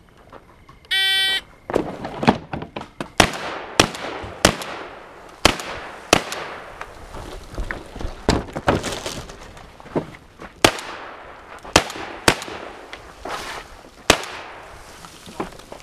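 An electronic shot timer beeps once, about a second in. A shotgun then fires about a dozen shots at uneven intervals, each blast ringing out briefly, with quieter clicks and knocks between the shots.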